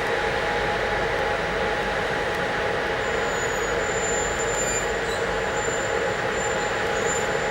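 Train running by on the rails, a steady rumble and hiss of wheels and engine, with a faint thin high squeal coming in about halfway.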